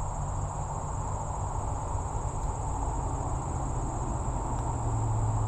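A steady, high-pitched chorus of insects over a low, continuous rumble.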